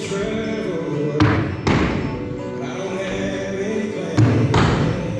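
Loud background music with singing, broken by heavy thuds about a second in, again shortly after, and near the end.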